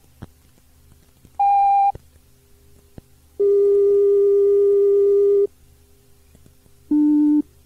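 Three steady electronic tones recorded on a Shinkansen on-board announcement cassette tape: a short higher beep, then a longer lower tone lasting about two seconds, then a short low beep. Faint tape hiss fills the gaps between them.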